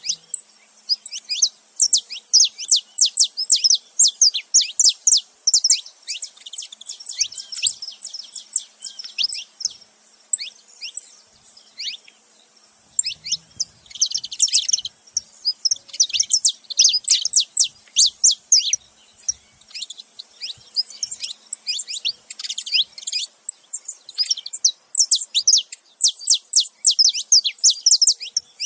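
Saffron finches, a male and a female, chirping and singing in fast runs of short, high, sharp notes that each slide downward, broken by a pause of a couple of seconds about ten seconds in.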